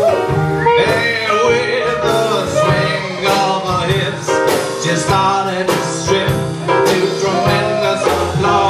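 Live band playing an instrumental passage with a steady drum beat and a pitched lead line over a bass part.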